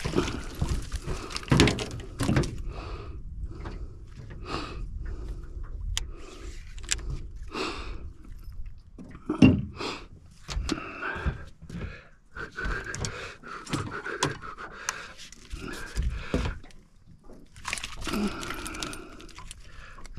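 Irregular knocks, clicks and light metallic jangling of fishing tackle and a freshly landed fish being handled, as the catch is dealt with and the lure is swapped.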